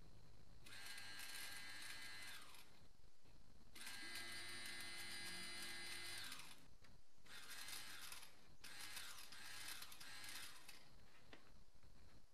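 BMW E30 325i in-tank electric fuel pump run on a 12-volt bench supply in four short bursts, a high whine over a harsh, gritty noise that winds down each time the power is cut. It sounds crusty, not the way it is meant to sound, though the pump does run.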